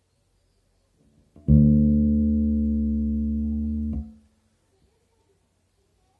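A single bass guitar note played through a Peavey Headliner 210 bass cabinet. It starts about a second and a half in, rings for about two and a half seconds and is cut off with a click. It is played to show a buzzing from the cabinet's right-hand speaker, which the owner puts down to a fault in how the cabinet is built.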